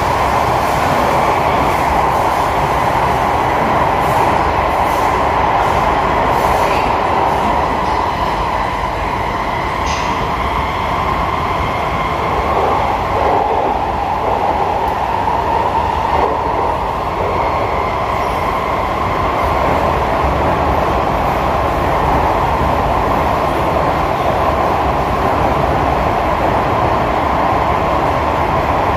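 SMRT C151A metro train running along the track, heard inside the passenger car: a steady rumble and rush of wheels on rail, with a faint thin whine above it and a few light clicks.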